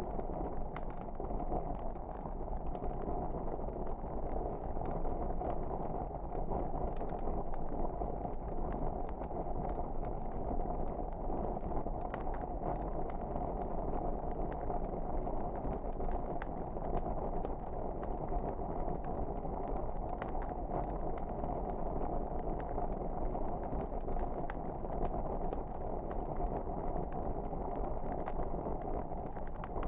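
Fireplace wood fire burning: a steady low rustle with frequent small crackles and pops scattered throughout.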